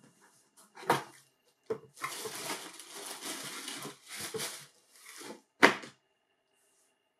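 Cardboard shoebox being handled: a knock about a second in as the lid comes off, then white tissue paper crinkling and rustling for about three seconds as it is pulled aside, and a sharp cardboard knock, the loudest sound, just before six seconds as the lid goes back on the box.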